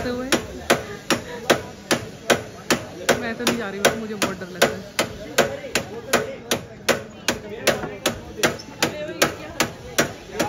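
Sharp, evenly spaced knocks, about three a second, keep a steady rhythm throughout, with faint voices underneath.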